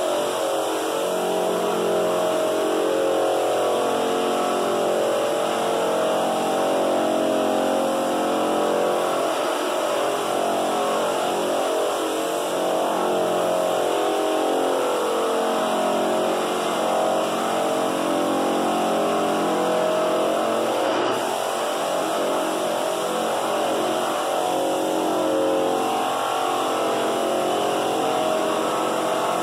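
Floor drum sander sanding a hardwood floor, its motor and drum giving a loud, steady drone whose pitch shifts slightly as the load changes, together with a Ridgid shop vacuum pulling the sanding dust through a hose into a cyclone separator.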